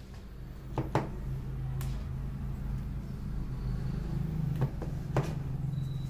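Hand-massage sounds on the head and neck: a few sharp cracks and slaps, a pair about a second in and three more near the end, over a steady low hum.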